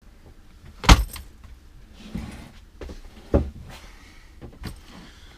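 Things being handled while packing up: a few sharp knocks, the loudest about a second in, with rustling in between.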